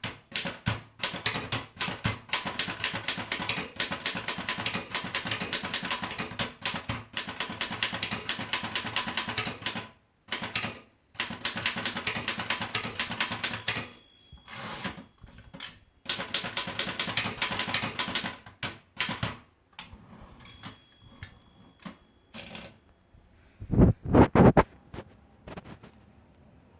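Erika model 5 manual typewriter being typed on: fast runs of sharp key strikes with short pauses between them, thinning out later on. A few louder, heavier knocks follow near the end.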